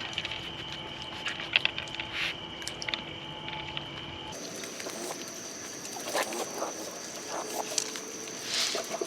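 Raccoons foraging among treat-filled dog toys, making scattered clicks and rustles over a steady high-pitched background drone. The drone jumps higher in pitch about four seconds in.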